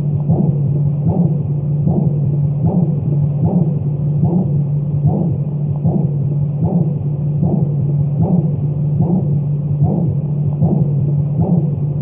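Heartbeat sound beating steadily, a little faster than once a second, over a constant low hum and a soft hiss of white noise.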